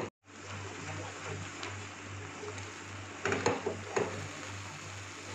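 Wooden spatula stirring and scraping a thick ground tomato-onion-cashew masala paste cooking in butter in a nonstick pan, with a low sizzle under it. A few louder scrapes of the spatula against the pan come about three and four seconds in.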